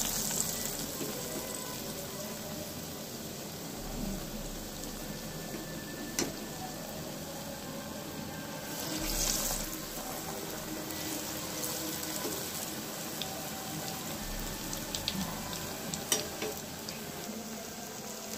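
Batter-coated potato chops deep-frying in hot oil, a steady sizzling hiss. It swells louder at the start and again about nine seconds in as fresh battered chops go into the oil. A couple of sharp clicks come about six and sixteen seconds in.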